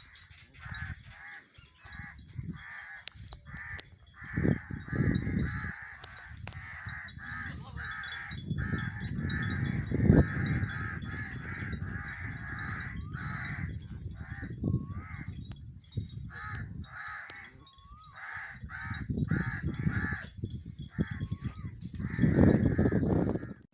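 Birds calling over and over in short repeated calls, with low rumbling bursts several times that are louder than the calls.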